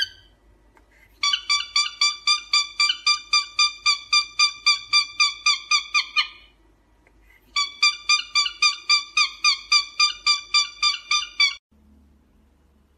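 Cockatiel giving rapid repeated chirps, about four a second, in two long runs separated by a short pause; the second run cuts off suddenly near the end.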